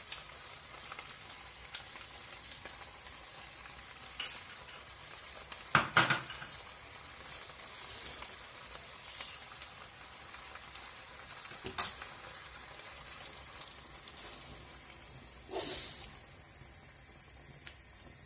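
Chopped potatoes, chorizo and vegetables sizzling gently in oil in a pot over low heat, a steady soft hiss. A few sharp knocks and clinks against the pot break in, the loudest about six seconds in and another near twelve seconds.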